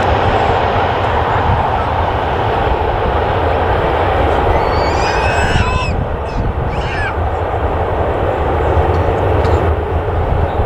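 Aircraft engines running loud and steady: a dense rumble with a hiss above it. A few short, high, sliding chirps come through about halfway.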